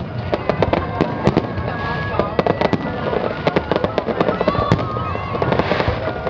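Fireworks going off in a rapid, continuous barrage of sharp bangs and crackles, several a second. Voices and music carry on underneath.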